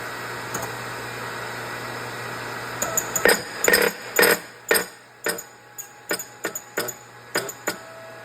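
Series of sharp metal knocks, about fifteen, starting about three seconds in and getting quieter and more spaced toward the end, as a press tool drives the shaft out of a TVS supercharger snout.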